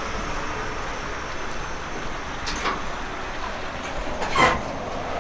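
Fully electric refuse truck on a Scania L-series chassis rolling slowly past: a steady, fairly quiet sound of tyres and electric drive with no diesel engine. A brief louder sound comes about four seconds in.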